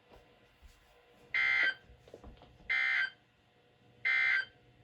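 Three short, identical bursts of Emergency Alert System (SAME) digital data tones from NOAA Weather Radio, about a second and a half apart: the End-of-Message code that closes the weekly test broadcast.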